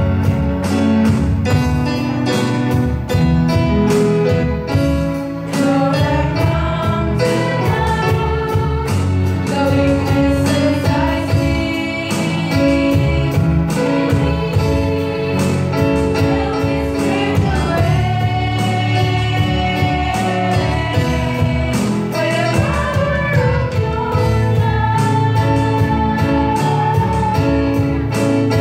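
Live worship song: women singing, one leading into a microphone, over keyboard accompaniment. The singing stands out more clearly after the first few seconds.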